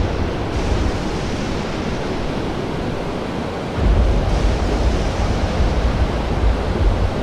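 Steady rushing noise over a deep rumble, growing louder about four seconds in: a sound-effect bed for the scene.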